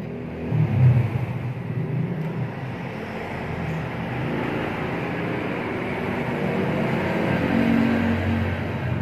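Steady low rumble of a running motor engine, louder for a moment about a second in.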